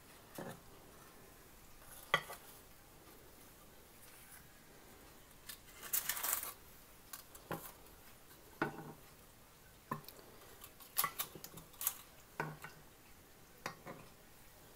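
Scattered light clinks and knocks of a kitchen utensil against a pan of sugar syrup, with a brief scrape about six seconds in, as gulab jamuns are lifted out of the syrup one by one.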